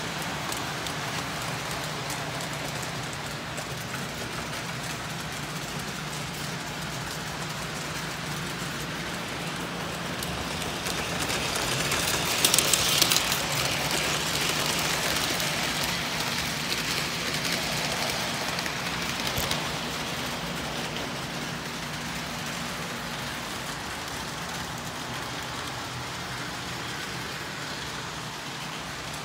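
O gauge model trains running on the layout's track: a steady rolling whir with a low hum underneath. It grows louder for several seconds in the middle, with a few sharp clicks.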